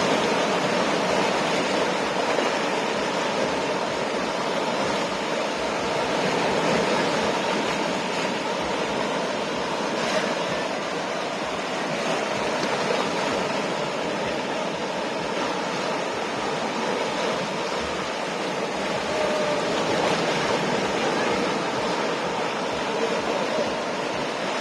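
Ocean surf washing onto the shore: a steady rushing of water that swells and eases gently in loudness.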